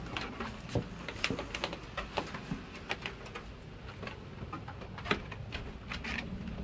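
Claws of Jindo dogs clicking and tapping irregularly on a wooden deck as they get up and walk, over a low steady rumble.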